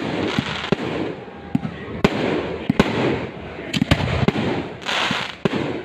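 Fireworks going off in quick succession: many sharp bangs and pops over a continuous crackle, with a dense burst of hissing crackle about five seconds in.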